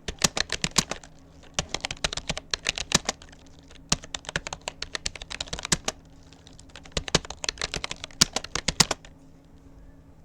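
Typing on a Rapoo computer keyboard: quick runs of key clicks with short pauses between words, stopping about 9 seconds in.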